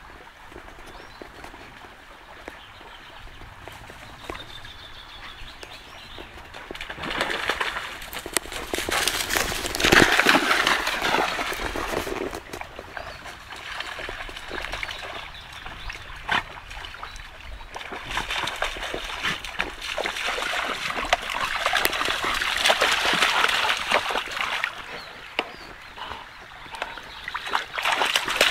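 A black Labrador–Belgian Shepherd mix dog splashing and wading through a shallow stream, over the steady trickle of the running water. The splashing comes in irregular bursts, loudest about ten seconds in and again through the second half.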